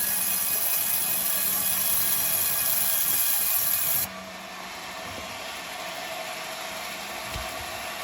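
Sawmill machinery running with a steady mechanical noise, which drops suddenly to a quieter, duller level about four seconds in.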